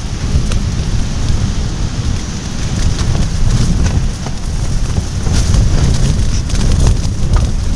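Strong gusty wind buffeting the microphone, a loud low rumble that surges and eases, with many short sharp cracks and rattles through it.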